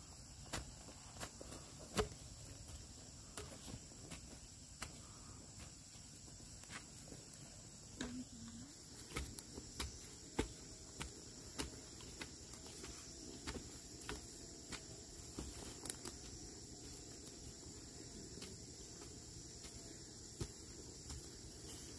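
Scattered soft taps and rustles in dry leaf litter and ash-covered soil, from bamboo poles poked into the ground and feet treading on dry leaves during hand-sowing of upland rice. Under them runs a steady high chirring of insects.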